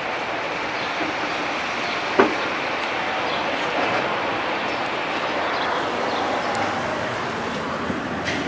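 Steady street traffic noise, with one sharp knock about two seconds in.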